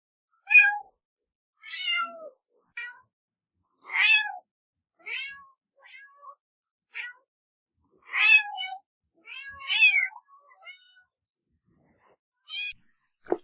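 A domestic cat meowing over and over, about a dozen short meows with gaps of silence between them. A sharp click comes near the end.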